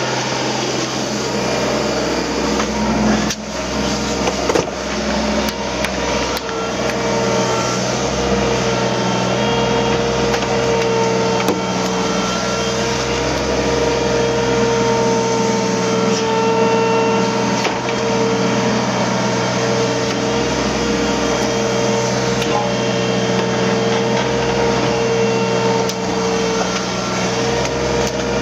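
Hydraulic excavator's engine and hydraulic pump running steadily with a constant whine, with a few sharp knocks around three to five seconds in.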